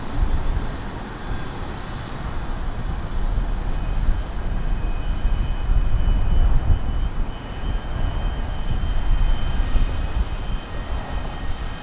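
Pratt & Whitney JT8D-17 low-bypass turbofans of a Boeing 737-200 running loud: a heavy low rumble with a thin high whine on top, wavering in level.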